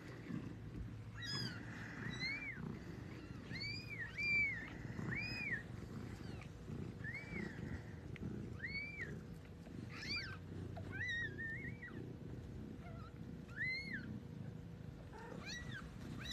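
Newborn Siberian kitten mewing: a dozen or so short, high-pitched squeaks that rise and fall, about one a second, while its mother licks it. Soft rustling runs underneath.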